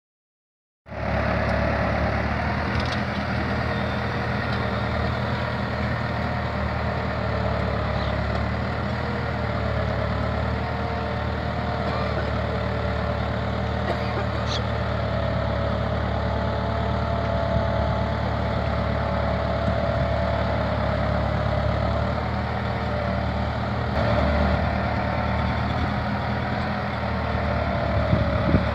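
Deutz-Fahr 80 hp tractor engine running steadily under load while pulling a Lemken Opal 090 reversible plough through the soil. The sound cuts in abruptly under a second in.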